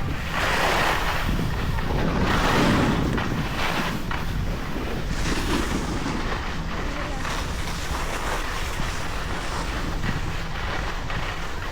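Wind rushing over the microphone of a skier moving downhill, with the steady hiss of skis sliding over snow.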